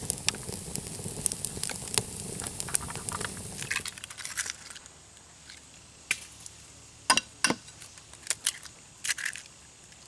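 Campfire of twigs and kindling crackling and popping densely for the first few seconds. It then drops to a few scattered sharp taps and clicks as eggs are cracked into a plate.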